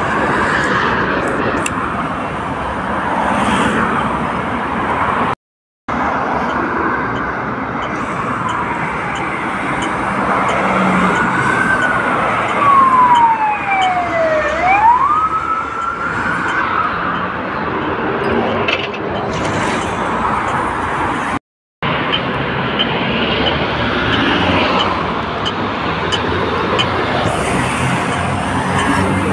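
Police car siren over street traffic noise. About halfway through, the siren sweeps down in pitch and then quickly back up. Two abrupt cuts break the sound briefly.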